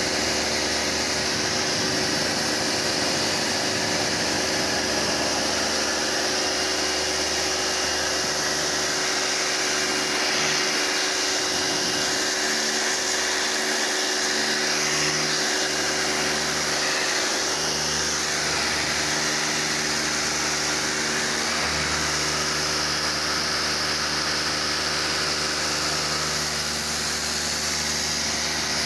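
Pressure washer running steadily, its motor or pump humming under the hiss of the water jet.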